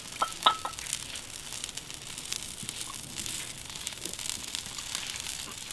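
Charcoal grill crackling and sizzling under pieces of eel on a wire mesh, a steady faint crackle with scattered sharp pops and a few brief clicks in the first second.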